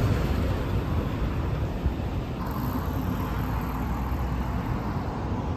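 Street traffic: a city bus going by, its low engine rumble easing off over the first two seconds, leaving steady traffic noise.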